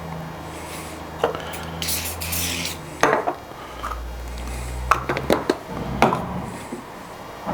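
Workpieces and tools being handled on a workbench: a scattering of sharp knocks and clatters, with a brief rustle about two seconds in, over a low steady hum.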